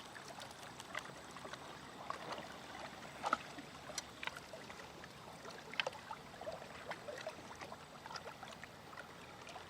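Water lapping and trickling at a lake shore, with scattered light clicks and taps, a few of them louder.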